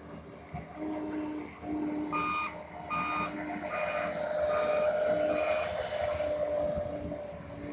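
Bobcat skid-steer loader's diesel engine running, getting louder as it revs up about halfway through. A backup alarm beeps five times, a little under a second apart, as the loader reverses.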